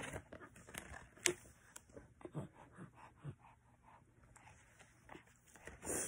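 Faint scattered taps, clicks and light rustles from a hardback picture book being handled as its page is turned, with one sharper click about a second in.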